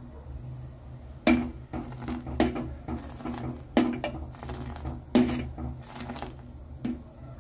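A steel strainer scooping hot masala chai and pouring it back into a steel pot to froth it, knocking sharply against the pot five times, with splashing of the poured tea in between.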